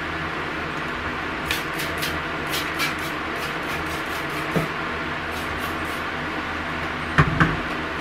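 Plastic refrigerator bins and shelves being handled: a run of light clicks and taps, then two louder knocks near the end, over a steady background hum.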